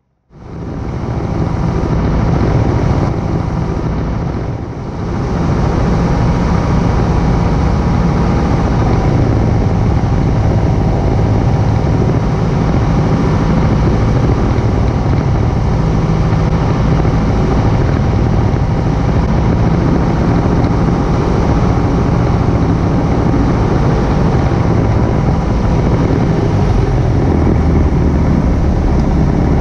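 Piper Cherokee single-engine propeller plane's engine and propeller running steadily, heard inside the cockpit during the landing approach. The sound cuts in abruptly just after the start and dips briefly about five seconds in.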